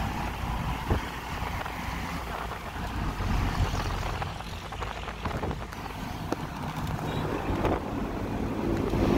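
Steady road and engine noise of a moving vehicle, heard from inside the cabin: a low rumble with wind on the microphone and a few light clicks or rattles.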